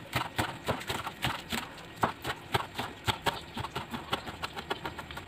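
Chef's knife chopping spring onions on a wooden cutting board: a quick, steady run of taps, several a second, as the blade cuts through the stalks and strikes the board.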